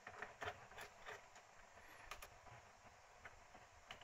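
Near silence, with faint, irregular clicks from an Allen key turning the socket-head screws on a wooden mounting plate.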